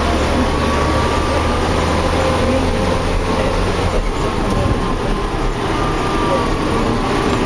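Deutz tractor's diesel engine running steadily as it drives along a road, with a constant low drone and a steady rush of wind and road noise.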